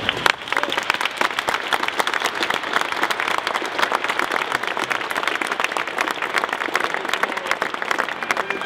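A crowd applauding, many hands clapping steadily together.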